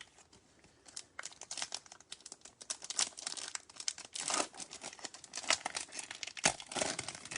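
Foil wrapper of a Bowman Chrome baseball card pack being torn open and crinkled in the hands, a dense run of sharp crackles starting about a second in.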